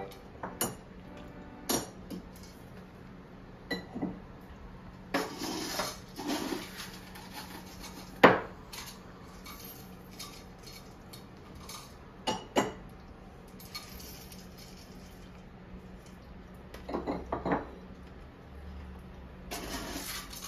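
Dishes and utensils clinking and clattering in scattered bursts as cat food is dished out, with one sharper knock about eight seconds in.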